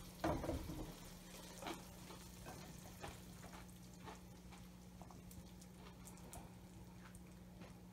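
Spatula scraping and tapping against a wok as stir-fried beef and green beans are pushed out onto a plate: a louder knock and scrape in the first second, then soft scattered clicks. A steady low hum runs underneath.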